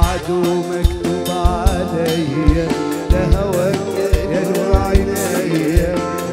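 Arabic song: a male voice sings a wavering, ornamented melody over instrumental backing with a steady drum beat.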